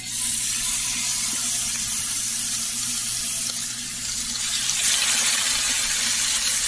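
Rib steaks sizzling as they are laid into hot olive oil in a frying pan: a steady hiss that starts suddenly as the first steak goes in and grows louder about five seconds in as the second is added.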